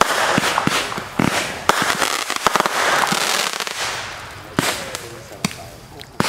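Consumer fireworks going off: a quick run of sharp bangs over a crackling hiss, thinning out after about two seconds, with a few more single bangs near the end.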